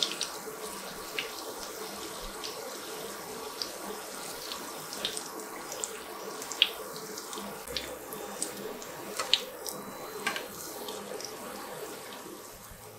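Paneer cutlets shallow-frying in hot oil in a nonstick pan: a steady sizzle with scattered sharp pops and crackles.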